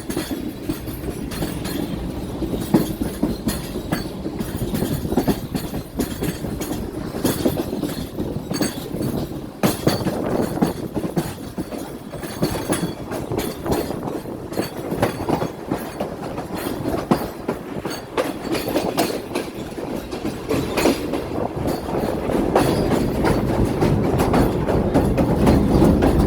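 Awam Express passenger train running, its wheels clattering on the rails over a steady rumble, getting louder in the last few seconds.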